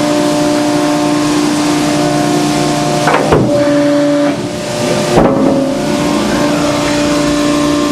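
Hydraulic power unit of a Selco HS-12HD horizontal baler running, its 20 hp three-phase electric motor and pump giving a steady hum while the pump drives the platen forward. Two short knocks, about three and five seconds in, come with a brief shift in the pitch of the hum.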